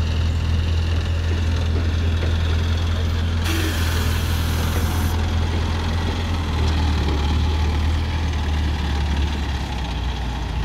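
ACE Hydra 12XW crane's diesel engine running steadily with a deep drone. A hiss rises over it for about two seconds a few seconds in, and the engine note shifts slightly near the end.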